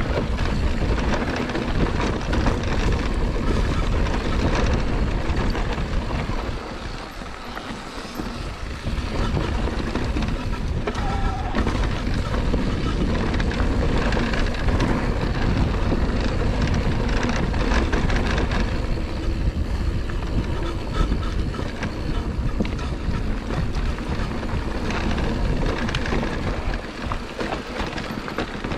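Scor 4060 Z ST electric mountain bike ridden on a rough dirt trail: steady rumble of tyres and bike over the ground with wind on the microphone, easing briefly about seven seconds in.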